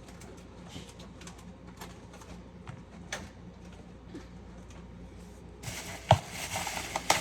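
Light taps and clicks of grocery packages being handled, then from about five and a half seconds in a louder plastic-packaging rustle with a few sharp knocks.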